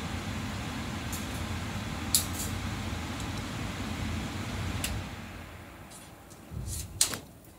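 Biosafety cabinet blower fan running with a steady rushing noise, which dies away over the last two or three seconds. A few sharp clicks sound over it, the loudest near the end.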